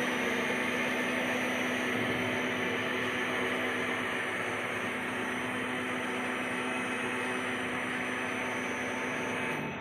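Powered-on Takisawa TC-203J CNC lathe humming steadily with a fan-like hiss, with a low steady hum underneath.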